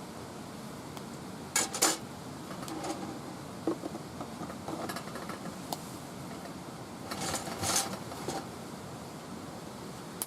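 Light clinks and clatter of cookware and utensils being handled, a few sharp strikes about a second and a half in and another cluster near the end, over a steady low hiss.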